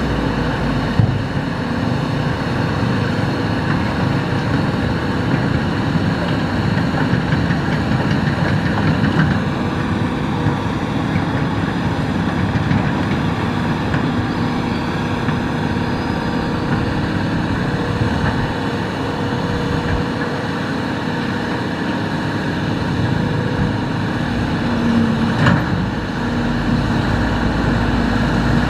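Hitachi hydraulic excavator's diesel engine running steadily while it works, with a single short clank near the end.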